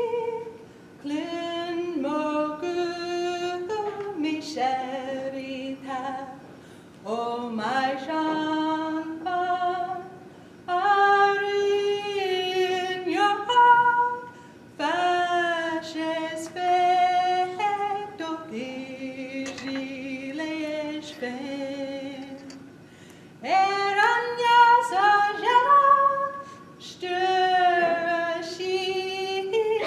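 A woman singing a traditional Scots Gaelic song solo and unaccompanied, in long held phrases with short pauses for breath between them.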